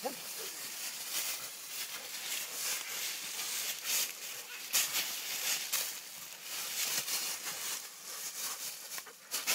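Dry leaf litter crackling and rustling as a treeing walker coonhound scuffles with a raccoon on the forest floor, with a short rising animal cry right at the start.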